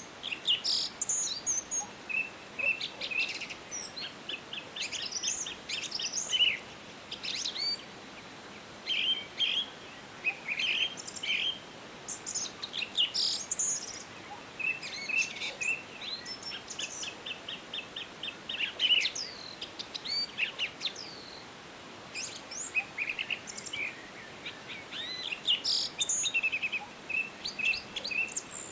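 Several songbirds singing and calling in a forest: overlapping chirps, short whistled phrases and rapid trills, with brief pauses between bursts.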